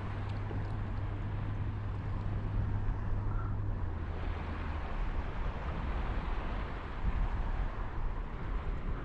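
Boat motor droning offshore over a wash of wind and surf noise; the low drone drops out about four to five seconds in.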